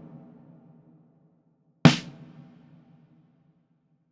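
Recorded snare drum, played back through a parametric EQ, struck about two seconds in and again right at the end, each hit a sharp crack that rings out with a low body tone and fades over about a second.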